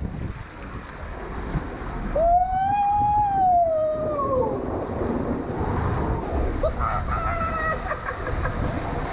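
A rider yelling while sliding down an enclosed tube water slide, over the steady rush and splash of the slide's water. One long yell starts about two seconds in, rises and then falls, and a shorter shout follows near the end.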